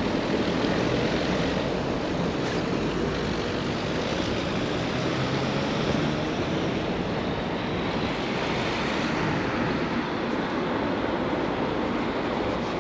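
Steady city-street traffic noise, an even rush with no single event standing out.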